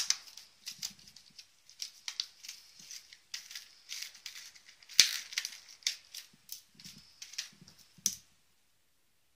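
Crinkling and clicking of a clear plastic blister pack of fishing snaps being handled and opened, with one sharper click about halfway through. The sound stops abruptly near the end.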